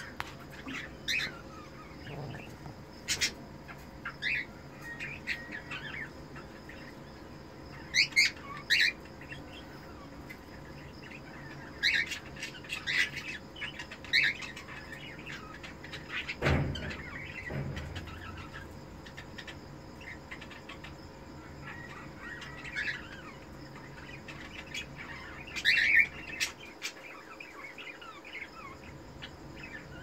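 Cockatiels chirping: short, separate chirps scattered throughout, with louder clusters of a few calls every several seconds. A single low thump comes about halfway through.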